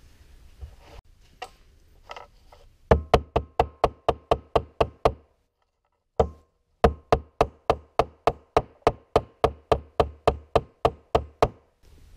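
A hammer rapidly tapping a steel wood chisel, chopping a slot into a small board. It comes in two runs of quick strikes, about five a second, with a short break between them, and each strike has a slight ring.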